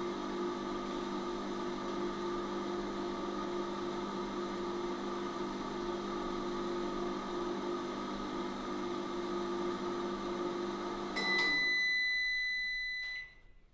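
Steady electronic humming drone. About eleven seconds in, a high steady beep joins it, fades over about two seconds and cuts off, leaving near quiet.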